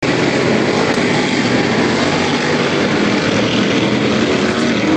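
Racing car engines running on the circuit, a loud, steady drone that does not let up.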